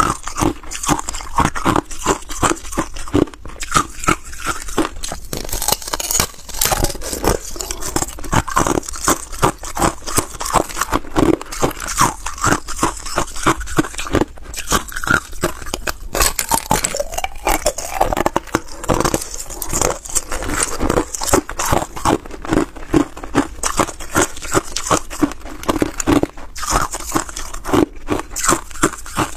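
Hard ice cubes being bitten off and crunched between the teeth, close to a clip-on microphone: a dense run of sharp cracks and crunches, several a second.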